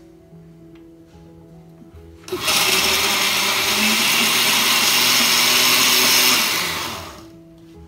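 Oster countertop blender running at speed: its motor starts abruptly about two seconds in, runs steadily for about four seconds, then winds down.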